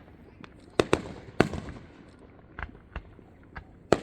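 Aerial fireworks bursting in an irregular series of sharp bangs, each with a short rumbling echo. The loudest come as a close pair about a second in and another half a second later; fainter bangs follow through the rest.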